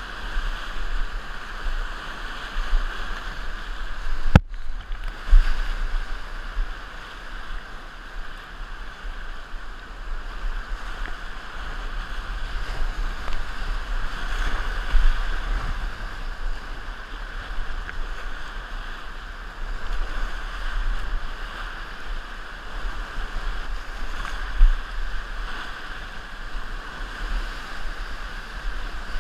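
Whitewater rapids rushing and splashing around a kayak, heard close up from the boat as a steady, churning water noise with a low rumble. A sharp click with a brief dropout comes about four seconds in.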